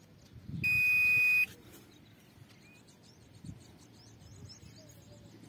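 A single steady electronic beep, one high tone a little under a second long, from an Aquameter CRM-50 groundwater resistivity meter.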